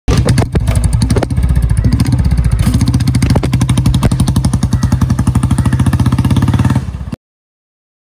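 Royal Enfield Bullet single-cylinder four-stroke engine running with its exhaust giving a steady beat of evenly spaced pulses. It cuts off suddenly near the end.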